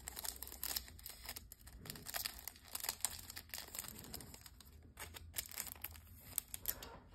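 Thin clear plastic wrapper on a trading card crinkling in irregular crackles as it is peeled open by hand.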